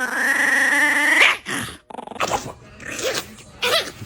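A puppy's drawn-out pitched growl-whine lasting about a second and a half, followed by several short yips and growls.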